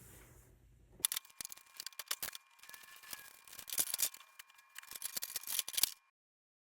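A rapid, irregular run of sharp clicks and light metallic knocks from hands and tools working at an electrical box, with a faint steady high tone under them. The sound cuts out abruptly about six seconds in.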